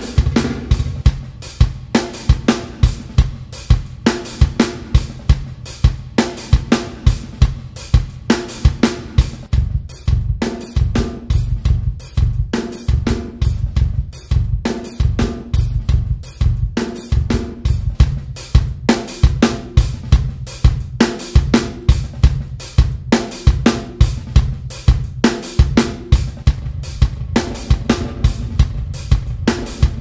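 Drum kit loop (kick, snare, hi-hat and cymbals) played at a steady beat through the D16 Group Spacerek reverb plugin. The reverb preset is switched partway through, from Big Head to Club Performance, changing the room sound around the drums.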